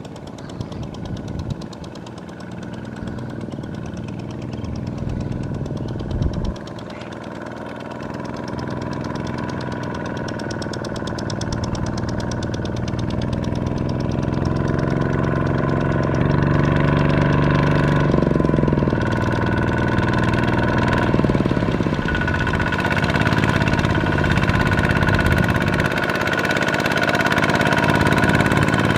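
Single-cylinder Kubota diesel two-wheel tractor pulling a loaded trailer of rice sacks through deep mud, its engine chugging under load and growing steadily louder as it comes closer. About two thirds of the way through, the engine note rises and dips as the tractor works through the mud.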